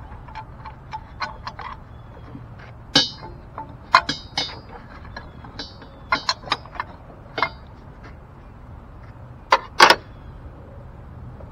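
Hand tools and bolts clinking and knocking against metal in the engine bay as the upper engine mount is worked loose. Small scattered clicks, with louder ringing clanks about three and four seconds in, a cluster around six seconds, and a double clank near ten seconds.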